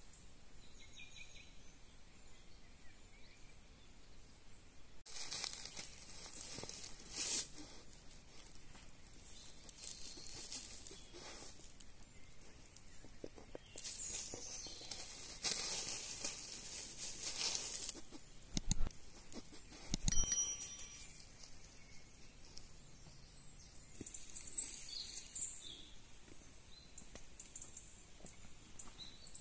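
Bursts of rustling and crinkling from plastic stretch-wrap and dry leaf litter as someone moves about, with two dull thumps a little past the middle, over quiet woodland ambience with a faint bird chirp near the start.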